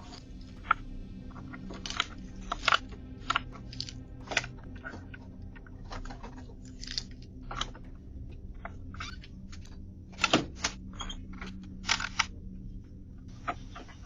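Irregular clicks and knocks at a front door, as the door is tried and knocked on, picked up by a doorbell camera's microphone over a steady low hum.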